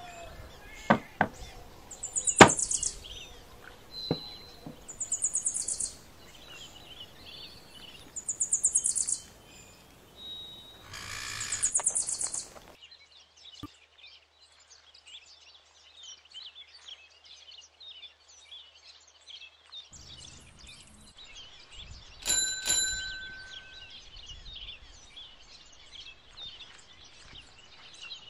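Birds calling: short, high, rapidly pulsed trills repeating every two to three seconds, with a few sharp knocks in between. Later, fainter high chirping continues, with a brief ringing tone and a thump about two-thirds of the way through.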